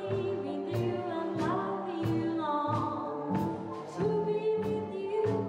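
Swing music from a big band with saxophones, with a voice singing over the band.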